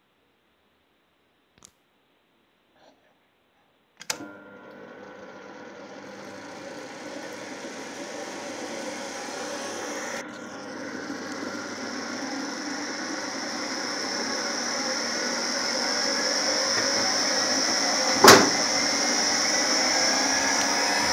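Electric motor fitted to a converted hand-crank honey extractor, switched on with a sharp click about four seconds in, then running and spinning the extractor basket, its rising whine growing louder as it gathers speed. A single sharp knock near the end is the loudest moment.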